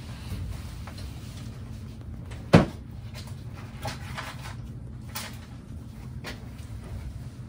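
A cupboard door shutting with one sharp knock about two and a half seconds in, followed by a few lighter clicks as supplies are handled on the shelves, over a low steady hum.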